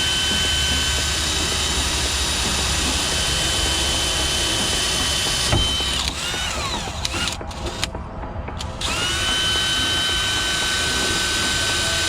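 Electric drill running at a steady speed, boring a pilot hole through the door. About six seconds in the motor winds down and stops, then it spins back up about nine seconds in and runs steady again.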